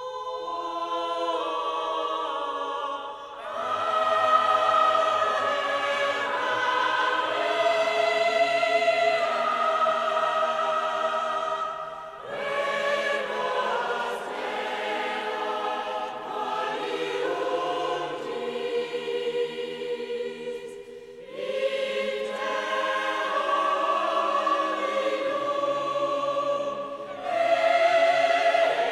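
A choir singing slow, sustained chords in long phrases, with brief breaks between the phrases.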